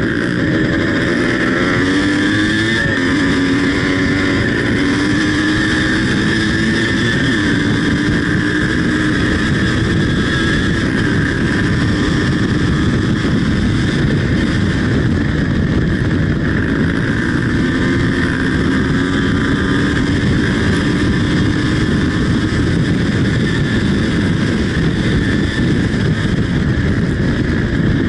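Yamaha DT 180's single-cylinder two-stroke engine running hard at speed, held at high revs, its pitch climbing slightly a few seconds in and again around the middle.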